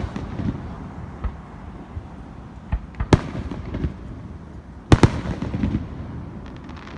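Fireworks going off: sharp bangs about three seconds in and a close double bang about five seconds in, with smaller pops between and faint crackling near the end, over a low rumble.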